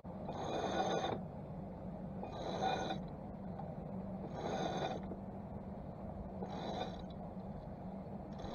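Deck winch being cranked to hoist a person up a sailboat's mast on a halyard: a short burst of ratcheting, clattering noise about every two seconds, over a steady low hum.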